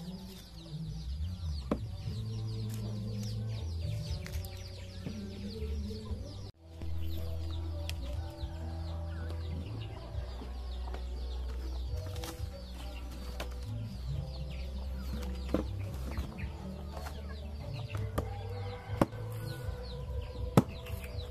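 Farmyard chickens clucking and cheeping. Near the end come a few sharp chops of a blade.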